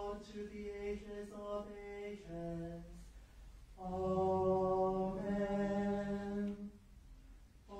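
Western-rite liturgical chant sung on a near-level reciting pitch: a phrase that steps down in pitch at its close, a short pause, then a louder and longer phrase.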